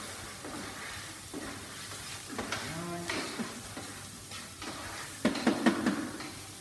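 Onions and mushrooms sizzling in a frying pan while a wooden spatula stirs them, scraping and knocking against the pan, loudest in a run of strokes about five seconds in. A short hummed voice sounds about two and a half seconds in.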